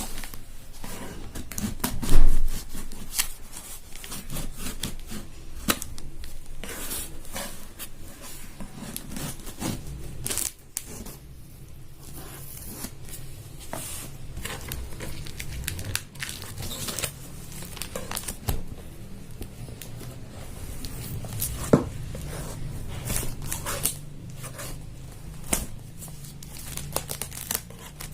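Cardboard box and packaging being torn open and handled: tape and paper tearing, plastic crinkling, with scattered clicks and knocks and one louder knock about two seconds in.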